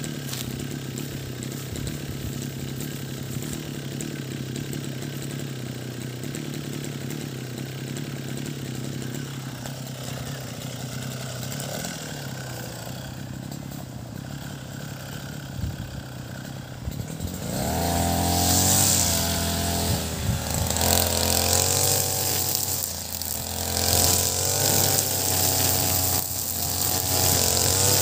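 Ogawa BG330 33cc backpack brush cutter engine running steadily, then throttled up about two-thirds of the way through. Its pitch then rises and wavers under load as the 2.4 mm nylon trimmer line cuts grass, with a hiss from the spinning line.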